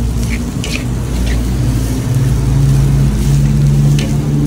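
Metal spatula scraping and knocking against a large steel wok as fried rice is tossed, a few sharp strokes, over a loud steady low motor-like rumble.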